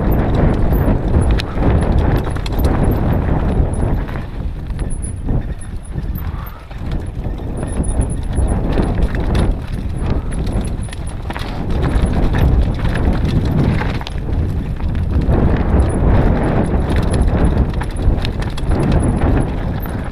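Mountain bike rattling and clattering down a rough, stony singletrack, tyres knocking over rocks in a rapid, irregular patter over a steady low rumble.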